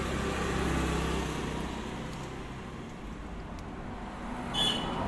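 Low, steady rumble of a motor vehicle running close by, stronger in the first second or so and then easing off, with a short high-pitched chirp near the end.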